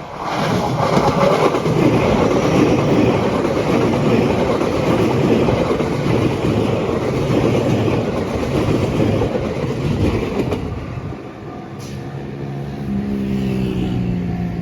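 Limited express electric train passing close by at speed, a loud rush of wheels and running gear over the rails for about ten seconds before easing off. As it fades, a level crossing's warning bell is heard ringing in a steady repeating pattern.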